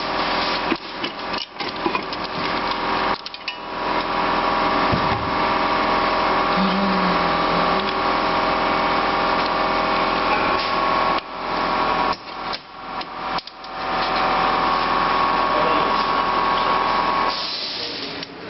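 A power tool's motor running steadily in two long stretches, the second a couple of seconds after the first stops, with knocks of tools against metal at the start and in the gap between.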